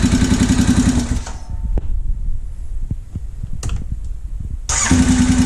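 Honda 650 motorcycle engine idling with a fast, even pulse, which for about three and a half seconds in the middle turns muffled to a low throb with a few separate knocks before coming back in full. The engine has a knock the owner calls "a tunka" and "thwacky", which he places midway in the motor and suspects is valve lash or a loose timing chain.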